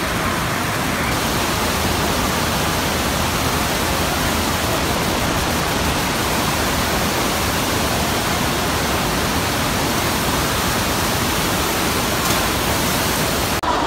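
Steady loud rush of water from a FlowRider surf simulator, a thin sheet of water pumped at speed up a padded slope.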